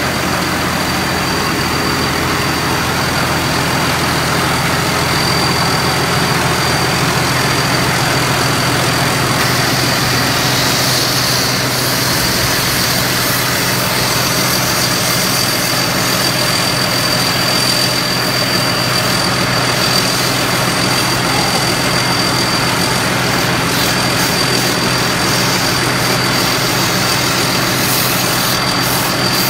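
Thai Seng Yont combine harvester's engine running steadily at a constant speed, with a thin steady high-pitched whine over the hum.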